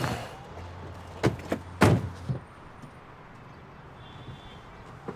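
An SUV's passenger door being shut: a lighter knock about a second in, then a solid thunk just before two seconds. A low steady hum cuts off just after.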